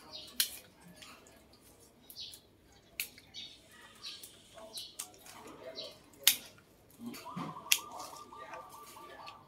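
Pruning shears snipping branches off a bonsai ficus: a string of sharp, separate clicks every second or so. A bird trills steadily in the background for the last two seconds or so.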